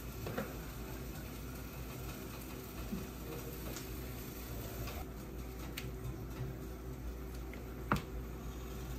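Quiet kitchen work: light clicks and clinks of cooking utensils over a faint steady hum. One sharp snip of kitchen scissors comes near the end.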